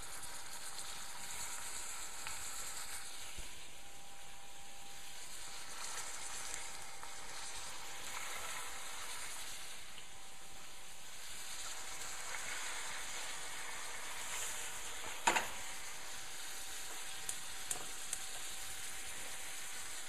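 String-tied veal rolls stuffed with ham and hard-boiled egg sizzling as they fry in hot oil in a stainless steel pot, with a steady crackle. There is one sharp knock about fifteen seconds in and a few light clicks after it.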